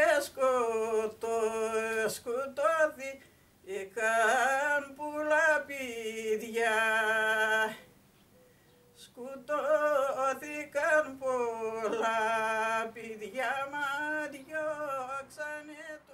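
A single voice singing unaccompanied, with long held notes that waver in pitch and short breaks between phrases, and a pause of about a second and a half near the middle.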